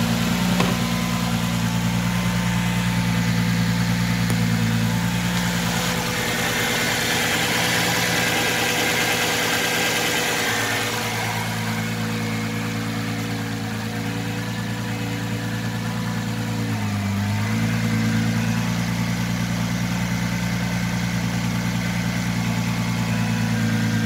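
Nissan GT-R's 3.8-litre twin-turbo V6 idling steadily, the idle sagging briefly once about two-thirds of the way through.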